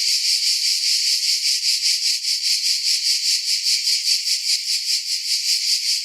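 Cicada chorus: a loud, high-pitched buzzing drone that pulses evenly about six times a second without a break.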